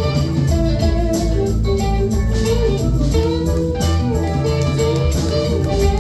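Live rock band playing an instrumental passage: electric guitars, bass guitar, drums and keyboards.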